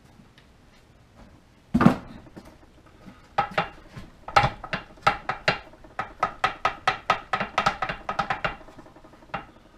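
Newly installed U-joint on a Ford F-150 driveshaft being rocked back and forth by hand in its yoke: a quick, even run of sharp metal clicks, about four a second, each with a short ring. A single heavier clank comes about two seconds in.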